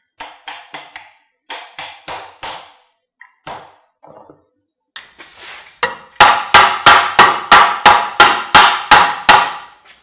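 Wooden mallet knocking a wooden lap joint together for a test fit: a few light taps in small groups, then about ten harder blows at roughly three a second.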